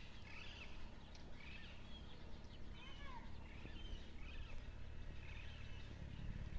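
Small birds chirping and calling, short rising and falling chirps scattered throughout, over a low steady rumble.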